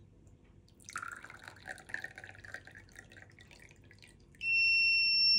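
Water poured from a glass jug into a small drinking glass, splashing for a couple of seconds. About a second before the end, a small 3–5 V buzzer in a one-transistor water-level alarm starts a loud, steady high-pitched tone: the water has reached the wire probes and tripped the alarm.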